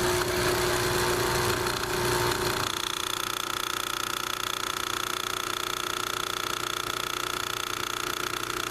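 Solis Master 5000 espresso machine running with a steady mechanical hum. About two and a half seconds in, the hum changes to an even, higher-pitched drone.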